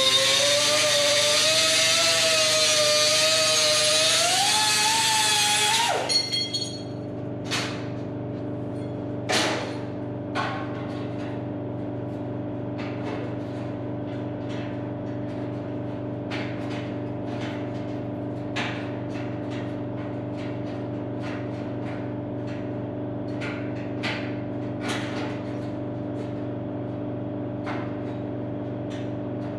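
A power cutoff tool cutting sheet metal: a loud, high whine with hiss whose pitch wavers, rises just before the end, and stops suddenly about six seconds in. After that a steady low hum goes on, with scattered light clicks and clanks of metal being handled.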